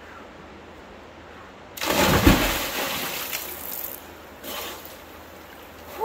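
A person plunging into a river: a sudden loud splash about two seconds in, then water churning and settling for a couple of seconds, followed by a smaller splash.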